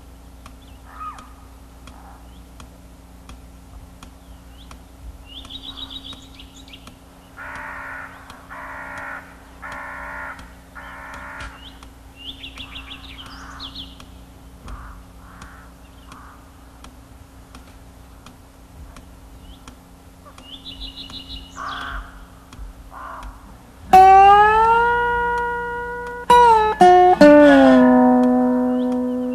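Film soundtrack: scattered bird chirps and four harsh, cawing calls over a low steady hum. From about 24 s in come loud slide-guitar notes that bend and glide in pitch before settling.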